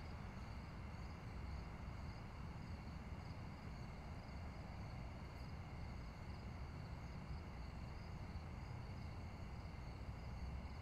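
Faint crickets chirping steadily in a night-time outdoor ambience, over a low rumble.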